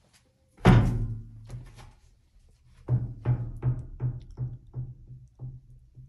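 Low drum-like thumps: one heavy hit about half a second in that rings away, then a run of about eight evenly spaced hits, roughly three a second, each fainter than the last.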